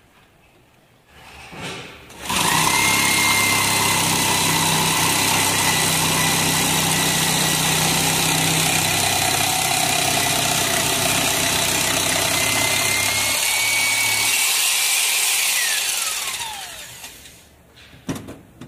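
Electric hand drill driving a homemade reciprocating-saw attachment, its blade sawing back and forth through a wooden strip. It starts about two seconds in, runs loud and steady with a constant whine for some fourteen seconds, then winds down with a falling whine. Two sharp knocks follow near the end.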